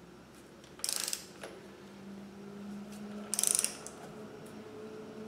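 Ratchet wrench clicking twice in short bursts as its handle is swung back between pulls on the harmonic balancer bolt of a small-block Chevy 350, drawing the balancer onto the crankshaft. A faint steady hum lies underneath.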